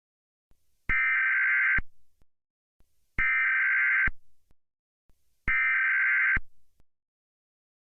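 Emergency Alert System digital data tones: three identical bursts of electronic warbling, each just under a second long, evenly spaced about two seconds apart. Sounded after the spoken message, they mark the end of the alert.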